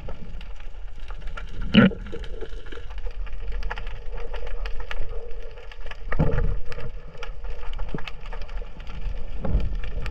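Underwater sound picked up by a submerged camera: a steady crackle of fine clicks, with louder knocks about two seconds in, about six seconds in and near the end.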